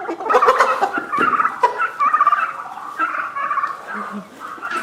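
Domestic turkeys gobbling as they display, a rapid warbling chorus that thins out near the end.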